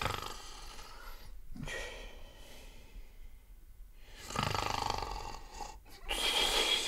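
A man's non-word vocal sounds, breathy and snore-like, in about four bursts with short pauses between them.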